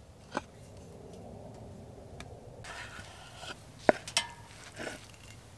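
A knife cutting through an omelette on a wooden chopping board: a few sharp clicks and taps of the blade on the board, the sharpest about four seconds in, over a faint steady hiss.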